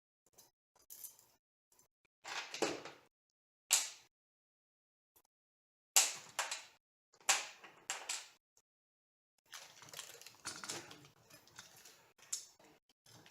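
Handling of 3D printer kit parts and hardware during assembly: irregular short clicks, clinks and knocks with quiet gaps, becoming a busier run of small clicks in the last few seconds.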